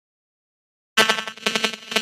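Silence, then about a second in a Nothing Phone (1) stock ringtone starts: a fast, glitchy run of electronic clicks, about six or seven a second, over steady synthetic tones.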